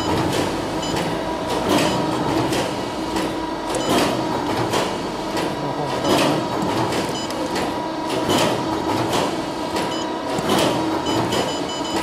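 Factory machinery running: a steady mechanical hum with a couple of steady tones, frequent irregular knocks and clicks, and now and then short high-pitched beeping.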